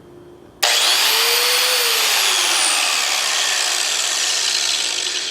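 Electric angle grinder switched on about half a second in, its motor and disc running with a loud whine that rises briefly, then slowly falls in pitch toward the end as it spins down.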